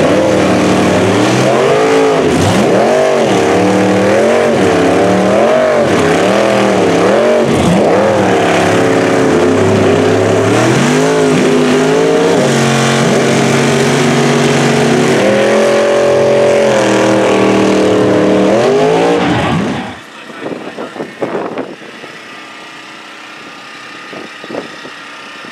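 Riot mega truck's engine revving hard under load in a tug of war, its pitch rising and falling again and again, then held steadier with a last rise. About twenty seconds in it cuts off to a much quieter stretch with a few scattered knocks.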